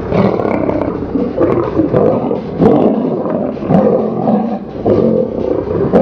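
Lions growling and snarling in a fight, in harsh swells about once a second.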